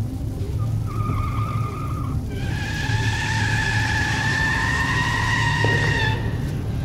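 Car tyres squealing as the car skids round: a short squeal, then a longer, slightly rising squeal of about four seconds that cuts off suddenly, over a steady low rumble.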